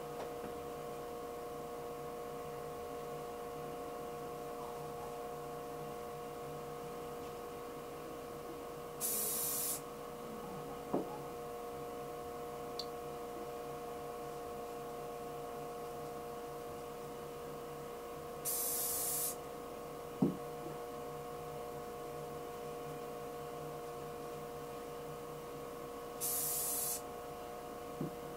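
Wood lathe running steadily with a constant motor hum as it spins a pen blank on a mandrel. Three short hisses, each under a second, come about nine seconds apart, with a few light clicks between them.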